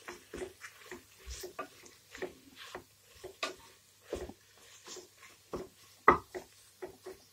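A spoon stirring a thick onion-tomato masala in a coated cooking pot: irregular scrapes and knocks against the pot, several a second, the loudest about six seconds in.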